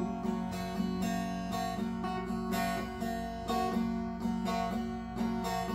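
Acoustic guitar strummed steadily in a folk-song accompaniment, chords ringing with no voice over them.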